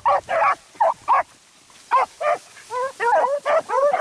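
A pack of beagles baying on a rabbit's scent: a quick run of short barks from several dogs, with a brief pause about a second and a half in.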